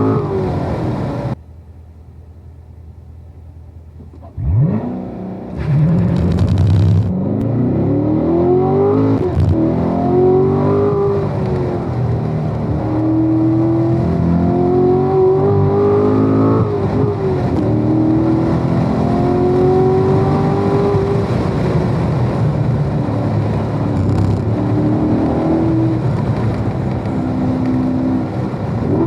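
Car engine under hard acceleration, its pitch climbing through each gear and dropping back at every upshift, over and over. Near the start the sound cuts off suddenly for about three seconds, then returns with a sharp rev.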